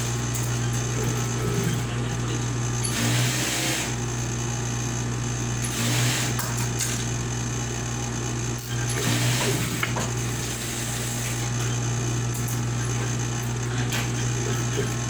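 Motorized sewing machine running steadily with a constant low drone, briefly louder about three, six and nine seconds in, as trousers are stitched.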